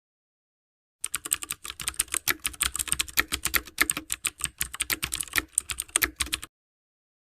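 Rapid, irregular light clicking and tapping of metal sewing-machine parts, about eight to ten clicks a second, as the lower drive and rotary hook are fitted. It starts about a second in and stops abruptly over a second before the end.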